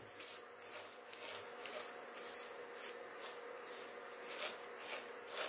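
Silicone spatula stirring and scraping dry-roasting vermicelli in a non-stick pan: faint, irregular scrapes and rustles over a faint steady hum.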